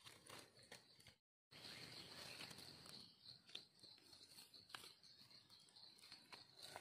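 Near silence: faint rustling and a few soft clicks of hands working in dry leaf litter and soil while picking wild mushrooms, over a steady high-pitched insect drone. The sound cuts out completely for a moment about a second in.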